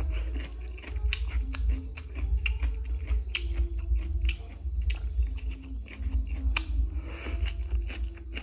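Close-up mouth sounds of someone eating crunchy shredded green papaya salad: a dense run of wet crisp crunches and mouth clicks from chewing, over a steady low rumble.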